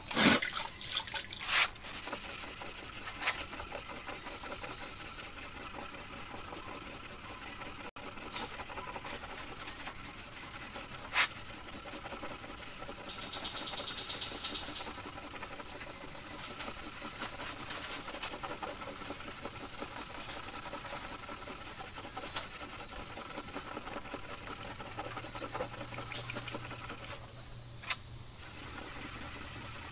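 Rubbing of fine 2000-grit wet sandpaper, wrapped around a small mahjong-tile block, scrubbed over red filler putty on a car's painted body panel as the putty is sanded back flush. There are a few sharp clicks, mostly in the first two seconds.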